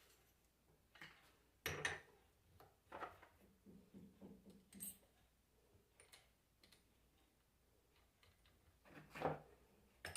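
Faint, scattered clicks and knocks of alternator parts being handled during reassembly, with near silence between them; the loudest knocks come near the start and near the end.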